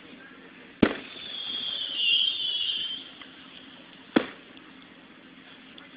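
Aerial fireworks bursting: a sharp bang a little under a second in, followed by about two seconds of high hissing, then a second sharp bang about four seconds in.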